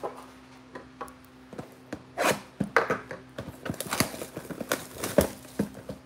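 Clear plastic shrink wrap being torn and pulled off a cardboard trading-card mega box, a run of sharp crinkles and rips starting about two seconds in, mixed with the box being handled.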